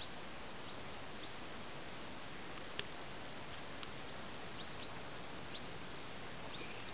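Steady outdoor background hiss with faint, very short high chirps or clicks scattered about once a second.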